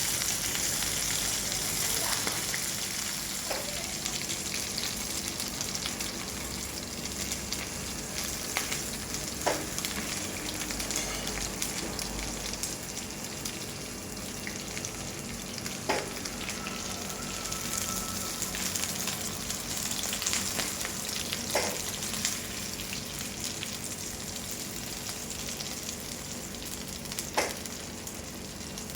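Oysters and egg frying on a hot pan: a steady sizzle, with a handful of short sharp clicks scattered through it.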